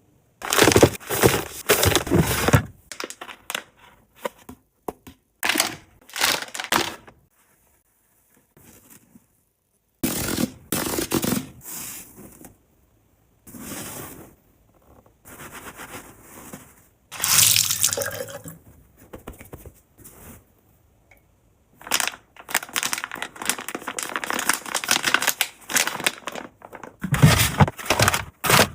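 Packaging being handled while household supplies are unpacked and restocked: irregular bursts of rustling, crinkling and tearing, with short gaps of quiet between them.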